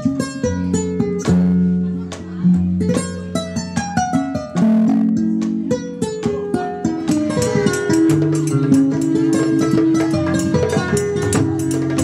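Kora, the West African harp-lute, plucked in a flowing run of quick melodic notes.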